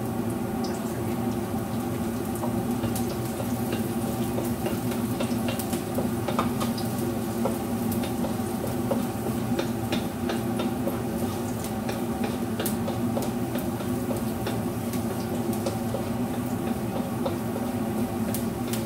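Strips of salted squid frying in a wok, sizzling and crackling with scattered small pops, as a wooden spatula stirs and scrapes them, over a steady hum.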